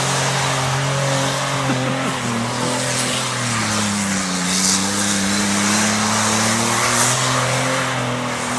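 Chevrolet Malibu sedan's engine held high in the revs as it spins its wheels sliding through mud, the pitch sagging about halfway through and climbing back. The spinning tyres and flung mud add a steady rushing noise.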